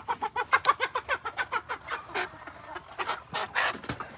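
A chicken clucking and squawking while being handled: a fast run of short clucks, slowing to a few longer, spaced calls in the second half.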